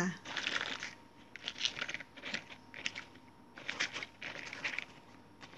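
Dried morel mushrooms being picked through by hand on a paper towel: short, dry rustling and crinkling in irregular bursts. The mushrooms are thoroughly dry and crisp.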